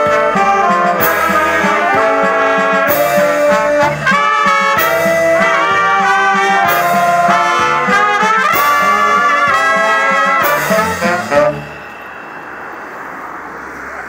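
Wind band of saxophones and trumpets playing a tune in several parts, which ends about eleven and a half seconds in, leaving only low background noise.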